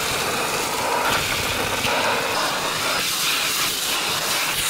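Backpack vacuum cleaner running with a steady hissing rush as its crevice nozzle sucks dirt off a truck cab's floor mat; the rush changes tone about three seconds in.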